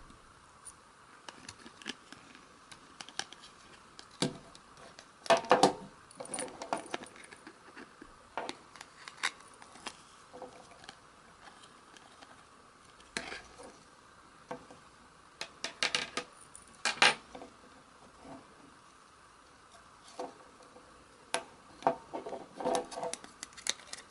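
The opened plastic casing and small parts of a dashcam being handled and pried at by hand: scattered clicks and light clatters, busiest about five seconds in, around seventeen seconds and near the end, over a faint steady hum.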